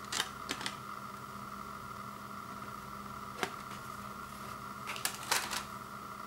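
Sharp plastic clicks as a CD-R is popped off the centre hub of a clear plastic slim jewel case and handled: a few near the start, one about midway, and a louder cluster near the end, over a steady background hum.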